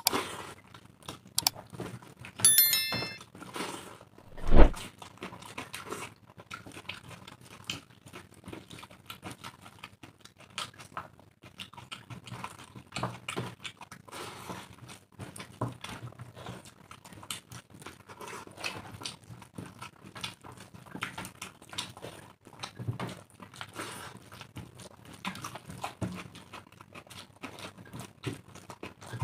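Two people eating rice and egg curry by hand: chewing, lip smacking and fingers squelching through wet rice, a steady run of small clicks. A short high ringing tone a few seconds in, and a single heavy thump, the loudest sound, about a second after it.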